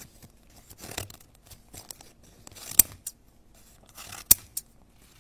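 Scissors snipping through paper: a series of short, sharp cuts, the loudest about three seconds in and again just after four seconds.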